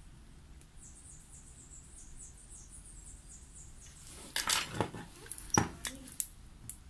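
Dental wax-up hand instruments at work: faint, rapid, high scratching strokes, then from about four seconds in a run of sharp metallic clicks and knocks as instruments are handled.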